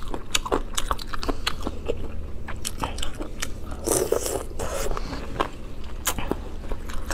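Close-miked biting and chewing of sour-spicy chicken feet, full of small wet clicks and crunches, with a short wet sucking sound about four seconds in.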